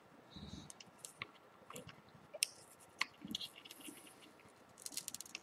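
Faint scattered clicks and scratches of small phone parts and tiny screws being handled, with a quick run of light ticks near the end.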